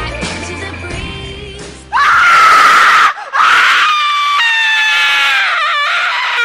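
A pop song plays, then about two seconds in it is cut off by a sudden, very loud jump-scare scream, which breaks briefly and starts again. The scream settles into a long, high wailing cry that falls slightly in pitch.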